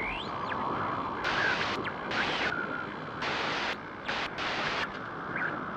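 Static-like hiss coming in four or five short bursts over a steady background noise, with a few faint whistling glides.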